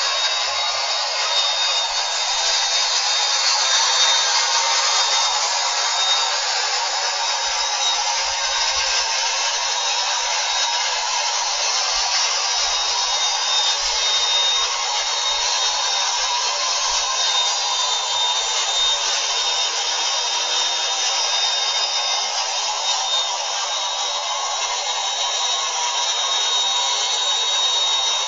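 Bissell MultiClean Allergen Lift-Off Pet cleaner's motor running steadily, a constant rushing suction noise with a thin high whine over it.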